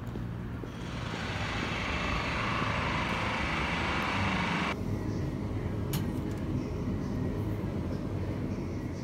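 Street traffic noise: a low rumble, with the hiss of a passing vehicle's tyres swelling for a few seconds and then cutting off suddenly, leaving a quieter rumble.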